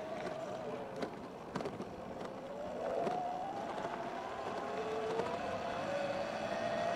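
Sur Ron X electric dirt bike's motor whining while riding, the pitch wavering with speed, dipping about five seconds in and rising again, over a steady hiss of road noise. A few sharp clicks come about one to one and a half seconds in.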